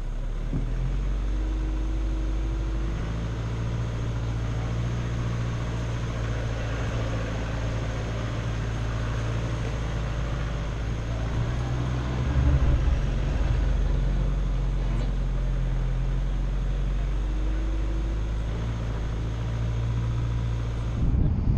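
4x4 vehicle's engine running steadily while driving slowly along a dirt track, getting a little louder about twelve seconds in.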